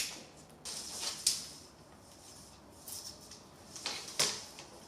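Short scratchy scrapes and clicks, a few spread across the moment, from rubber screen spline and mesh being handled and pulled out to length along a window screen frame.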